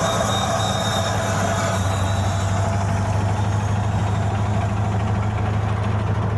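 Volkswagen Fusca (Beetle) air-cooled flat-four engine running steadily with a low, even drone.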